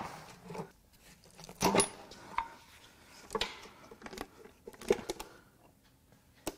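Pry bar clacking against the plastic oil pan and the engine block of a Ford 2.7 EcoBoost V6 as the sealed pan is pried loose: a handful of scattered clacks and clinks, one with a short metallic ring.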